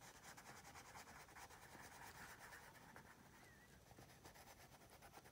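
Faint scratching of a colored pencil on paper, in quick, even shading strokes.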